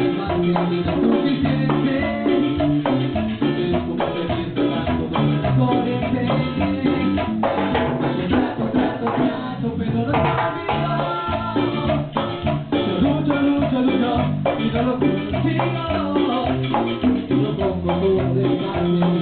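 A band playing a Latin dance tune at rehearsal: a steady beat of drums and a shaker over a walking bass line and melody instruments.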